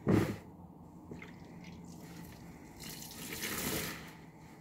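Foam car sponges squished in a tub of soapy water: a loud wet squelch and slosh right at the start, then, about three seconds in, water pouring and dripping back into the tub as a sponge is lifted out and squeezed.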